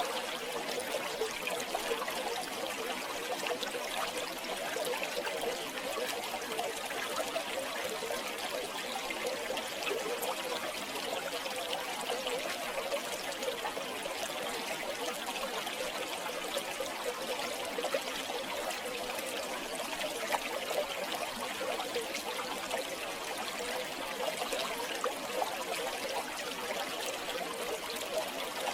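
River water flowing steadily over stones, with a constant trickling and gurgling.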